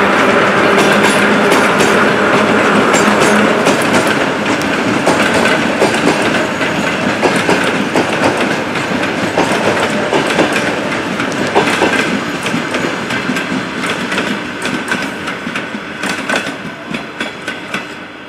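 Train rolling past on the rails, its wheels clicking and clattering over the rail joints; the sound fades over the last few seconds as the train moves away.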